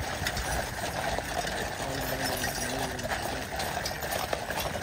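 Steady outdoor crowd noise: many people milling and talking, with indistinct voices in the background and scattered small clicks.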